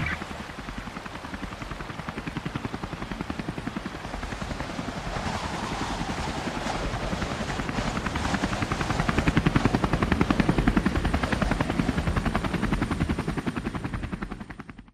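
Helicopter rotor sound effect in a song recording: fast, even blade beats that swell, then fade out near the end.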